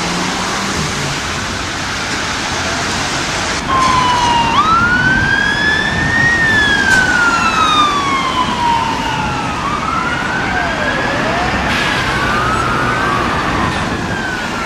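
Vehicle and road noise, then about four seconds in a fire engine siren starts up, growing louder, and wails in slow sweeps that rise for about a second and a half and fall over about three seconds.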